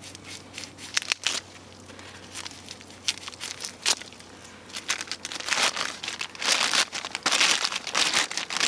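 Plastic bag being cut open with a knife and pulled off a buried jar. It crinkles: a few scattered sharp crackles at first, then dense, continuous crinkling from about five seconds in.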